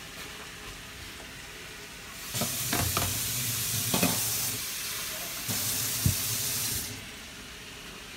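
Stir-fry vegetables sizzling faintly in a hot wok, then two loud bursts of rushing water, about two and a half and five and a half seconds in, each lasting a second and a half to two seconds, as a little water is added for steaming them.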